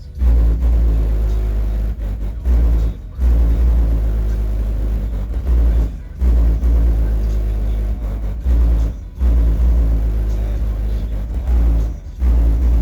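A car audio system's trunk subwoofers in a fiberglass enclosure play bass-heavy rap music at high volume. Deep bass dominates, cutting out briefly about every three seconds with the beat.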